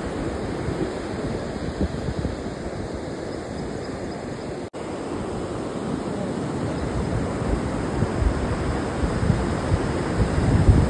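Rough sea surf breaking on the shore, with wind buffeting the microphone in gusts that grow stronger near the end. The sound cuts out for an instant a little under halfway through.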